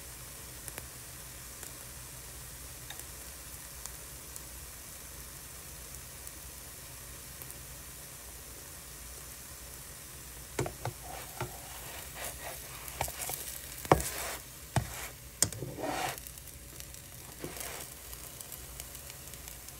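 Spinach wrap batter sizzling steadily in a frying pan. About halfway through, a utensil begins to scrape and knock against the pan in irregular strokes, louder than the sizzle, as the wrap is checked.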